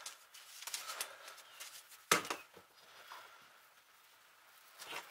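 Hand-tool handling on a wooden workbench: a wooden folding rule clicking as it is folded up, with rustling, a sharp knock about two seconds in as something is set down on the bench, and a few more taps near the end.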